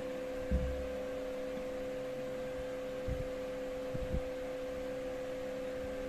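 Steady electrical hum from an opened car cassette player's amplifier coming through its speaker. A few low thumps sound as the speaker wires are handled and connected, the loudest about half a second in and two close together about four seconds in.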